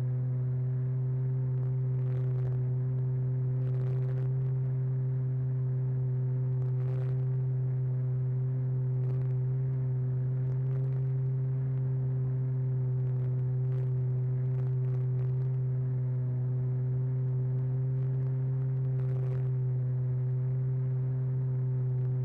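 Steady drone of a radio-controlled model airplane's motor and propeller in cruising flight, heard from a camera mounted on the airframe, holding one pitch, with faint crackles now and then.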